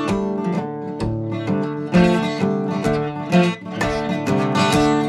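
Solo acoustic guitar playing a country song's instrumental intro, a run of picked and strummed notes in a steady rhythm.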